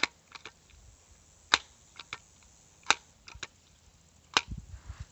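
Sharp clicks from an air-powered BB gun being handled and fired: three louder clicks about a second and a half apart, with lighter ticks between them.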